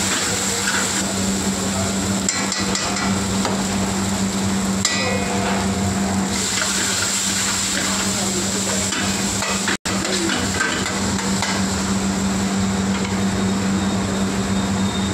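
Onions and spices frying in a steel pan on a gas burner, sizzling, while a long metal ladle stirs and knocks against the pan, over a steady low hum. The sound drops out for an instant about ten seconds in.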